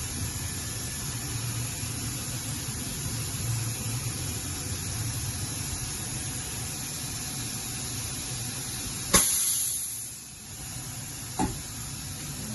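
Steady low hum of running shop machinery. About nine seconds in, a sharp click is followed by a brief hiss that fades within a second, and a second click comes about two seconds later.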